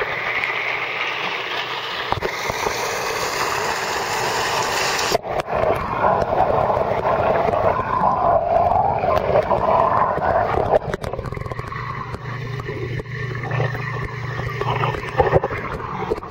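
Churning pond water splashing, heard in air; about five seconds in the microphone goes under the surface and the sound turns to a muffled underwater rumble with scattered knocks.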